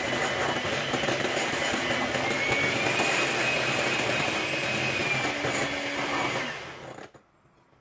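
Bifinett electric hand mixer running steadily, its beaters whisking a cream mixture in a bowl, with a thin motor whine that rises slightly in pitch midway. It is switched off about six and a half seconds in and winds down quickly.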